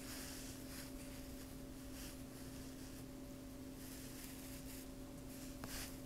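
Faint rustle of yarn being worked with a crochet hook, coming in soft patches over a steady low electrical hum, with a small click near the end.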